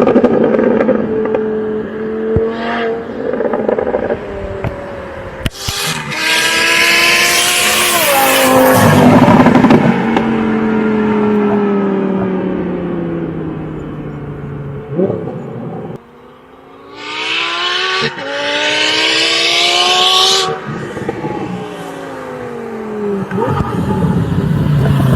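Twin-turbocharged Audi R8 V10 running hard at full throttle, its engine note falling in pitch in two long sweeps as it passes or lets off. Several separate runs are cut together, so the sound changes abruptly twice.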